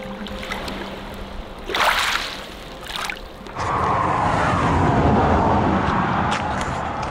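Wind buffeting the microphone outdoors, a loud, gusting rumble that rises sharply about three and a half seconds in, after two brief rustling bursts.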